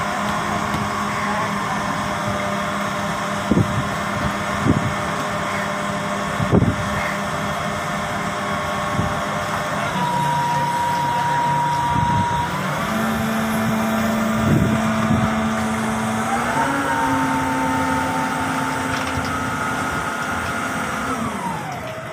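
Engine of a truck-mounted crane running steadily while the crane holds and lowers a fishing boat in slings. Its pitch steps up about halfway through and again a few seconds later, then drops back near the end. A few sharp clanks sound in the first few seconds.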